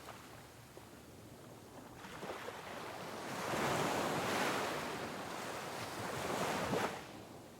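Sea waves breaking on rocks: a lull, then a wave surges in about two seconds in, crashes and washes for several seconds, and falls away abruptly near the end.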